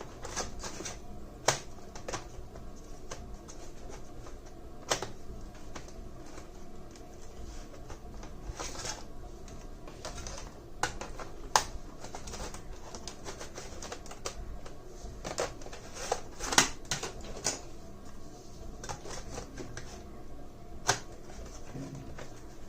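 Irregular clicks and knocks of a hard-drive caddy for a laptop's optical-drive bay being handled and pushed into the laptop, with a few sharper snaps every few seconds.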